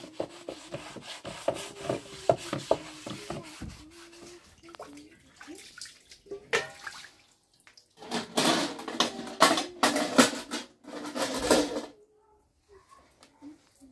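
Water running and splashing, with small clicks and clatters, growing loud for a few seconds past the middle and then stopping.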